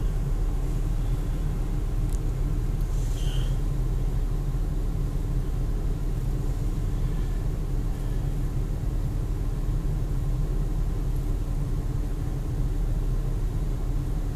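Car engine idling: a steady low hum, with a short faint squeak about three seconds in.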